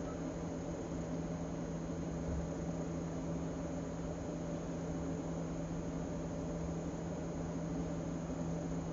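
Steady hum with an even hiss underneath, unchanging throughout.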